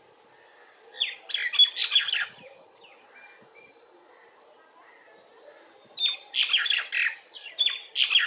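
Birds giving harsh calls in two bouts of rapid notes, one about a second in and a longer one from about six seconds in.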